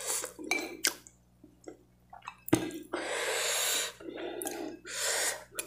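A metal spoon scraping and clicking against a ceramic bowl, one sharp clink about two and a half seconds in, with hissing breaths and chewing while eating very spicy fried rice.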